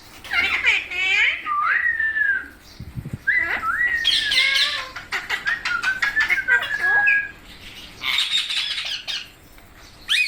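Several pet rose-ringed parakeets squawking and chattering: sharp gliding squawks and whistles mixed with quick rattling chatter, pausing briefly near the end before another burst of squawks.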